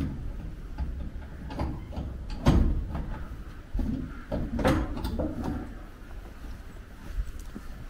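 A corrugated sheet-metal gate being unlocked and worked by hand: scattered knocks and rattles of the latch and metal panels, the loudest about two and a half and four and a half seconds in.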